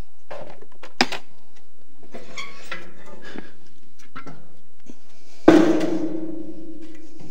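Metal clicks and clatter from handling things at a steel cooking stand, then one loud metallic clang about five and a half seconds in that rings on with a low steady tone before cutting off.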